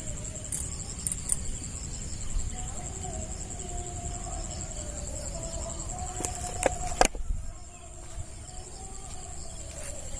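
Insects trilling with a steady, fast-pulsing high note over low outdoor rumble, with a few sharp clicks about two-thirds of the way in.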